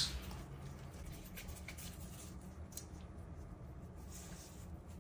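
Faint rubbing of gloved palms rolling small pieces of sweet potato dough into balls, with a few faint clicks.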